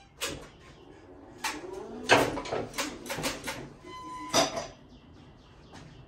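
A Big Joe battery-electric stacker forklift being moved, giving a run of irregular clicks and clunks, with a short squeak or beep about four seconds in.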